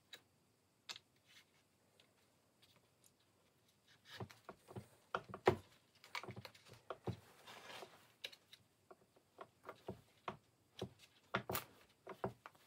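Hand-stitching a birch bark knife sheath: a needle and thread worked through the bark, making scattered light clicks, taps and rustles. They are busiest in the middle, with a short rasping rustle of the thread being drawn through, and a few more clicks near the end.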